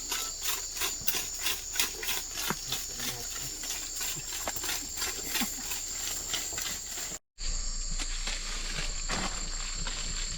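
Rainforest insects calling: a steady high buzz with fast, even pulsing chirps about four a second. About seven seconds in the sound cuts out for a moment, then a steadier high insect drone continues.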